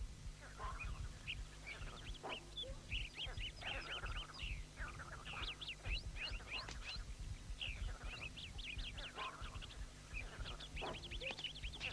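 Many short, high chirping animal calls overlapping throughout, over a steady low hum.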